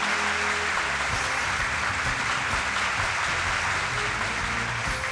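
Steady applause and clapping, with music playing underneath.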